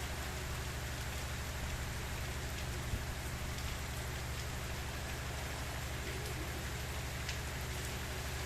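Steady gentle rain falling, with scattered drops ticking and one sharper tap about three seconds in, over a low steady hum.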